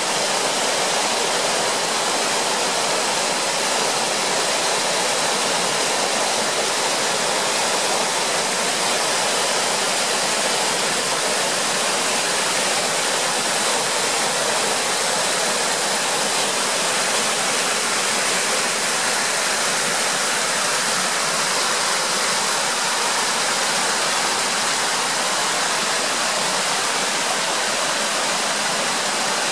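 Water of the Bode river pouring down the Upper Bode waterfall: a steady, unbroken rush.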